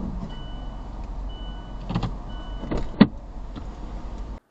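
Inside a slowly moving car, a parking-garage barrier arm knocks and scrapes against the hood and windshield as the car pushes past it, with a sharp knock about three seconds in the loudest. A steady low cabin rumble runs underneath, and a beep repeats about once a second. The sound cuts off just before the end.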